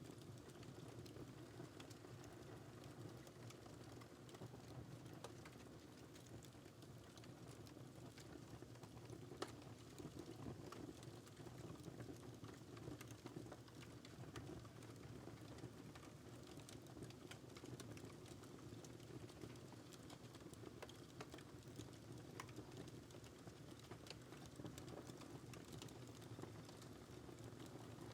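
Wood fire burning in a fireplace, crackling softly with scattered small pops over a low steady rumble, and one sharper pop about nine seconds in.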